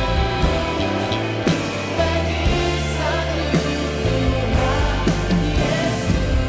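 Worship band playing a Christian song: voices singing over a drum kit, with steady sustained bass notes and regular drum hits.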